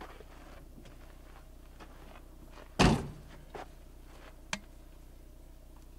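A vehicle door slammed shut about three seconds in, followed by two lighter knocks.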